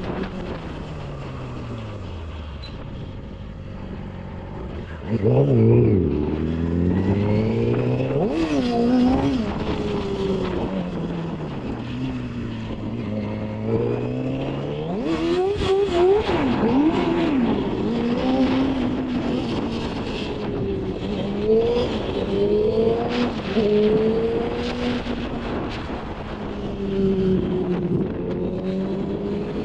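Yamaha YZF-R6 inline-four engine under a rider's throttle: the engine note falls away for the first few seconds, then rises sharply and gets much louder about five seconds in, followed by repeated rises and drops in pitch as the rider accelerates and backs off. Wind noise on the microphone runs underneath.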